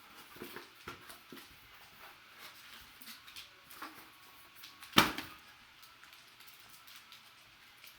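Light rustling and small clicks of trading cards and their packaging being handled, with one sharp, loud click about five seconds in.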